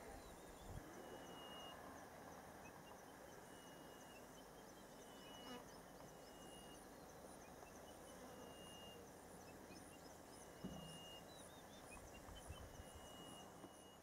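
Faint savanna ambience. A short, high, flat whistle repeats about every second and a half over steady fast, very high insect ticking.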